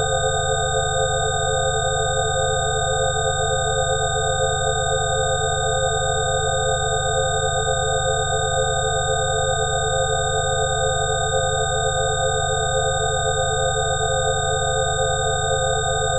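Layered, electronically generated sine tones played as a 'healing frequency' for coughing: several steady pitches held at once over a low hum, a few of the middle tones pulsing gently, with no change in level.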